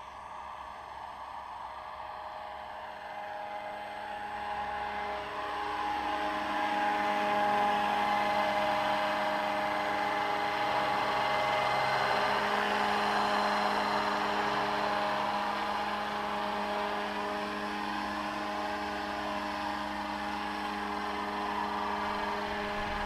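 Scale AS-350 700-size RC helicopter in flight, its drivetrain and rotors making a steady whir with several steady tones. It grows louder over the first several seconds as it comes in close, then holds steady.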